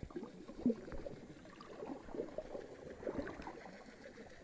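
Faint, irregular bubbling and trickling like running water, made of many small quick blips with no steady tone.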